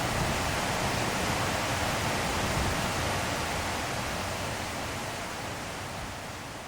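Steady heavy rainfall, an even dense hiss without distinct drops, slowly fading out over the last few seconds.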